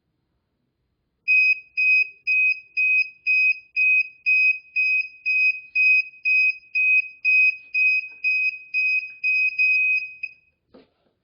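Hoverboard's alarm buzzer beeping: a single high tone repeated about twice a second for some nine seconds, then stopping, followed by a short click.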